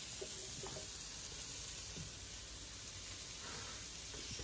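A pan sizzling steadily on a gas stove.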